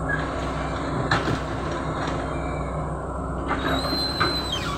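CAT 312 hydraulic excavator's diesel engine running steadily while it dumps a bucket of soil into a dump truck and swings back to dig. There is a clunk about a second in, and a high squeal for about a second near the end.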